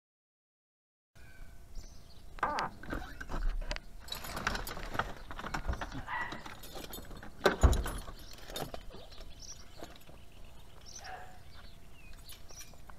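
A safety harness being pulled out of a car and handled: rustling straps and small clinks and clicks of metal buckles, with one heavy thump a little past halfway through.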